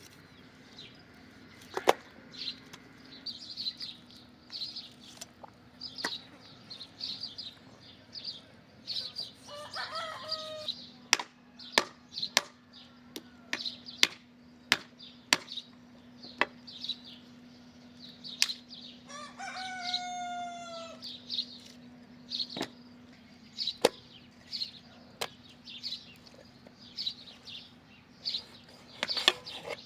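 Chickens around a farmyard: one gives a longer call about a third of the way in and a rooster-like crow about two-thirds in, over constant high chirping. Sharp knocks or clicks come irregularly throughout, over a faint steady low hum.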